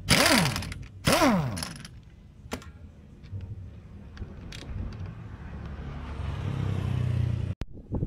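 Pneumatic impact wrench on the scooter's CVT cover bolts: two short bursts, each dropping in pitch as the wrench spins down. Later comes a longer noise that builds and cuts off sharply near the end.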